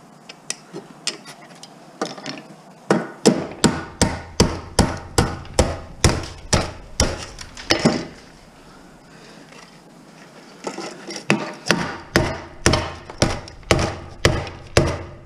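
Hammer blows, about two a second, striking a scrap electronic slot card to knock loose a part that will not pull out. The blows come in two runs with a short pause partway through.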